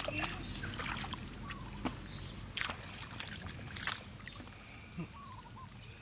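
Muddy water sloshing and lapping in a shallow pool as people wade in it, with a few short, sharp splashes scattered through.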